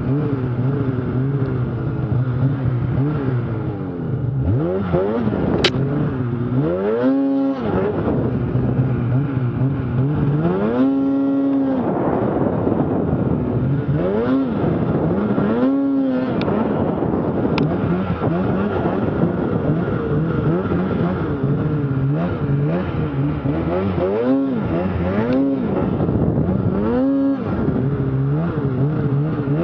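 Snowmobile engine revving up and down again and again, in short rising and falling surges with brief holds at high revs, as the sled works its way through deep powder snow.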